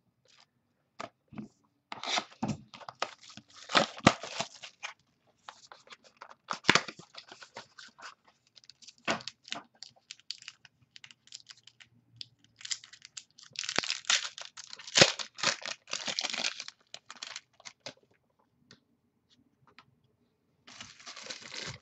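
Trading-card pack being torn open and its wrapper crinkled, with cards handled, in several bursts of rustling separated by quiet gaps.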